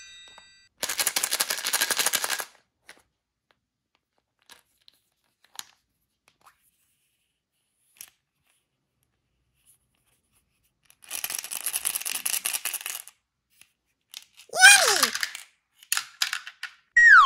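Candy-coated chocolates rattling inside a plastic toy container: two short spells of rapid clicking, with a few faint taps between them. Near the end comes a falling whistle-like tone, then a swooping one.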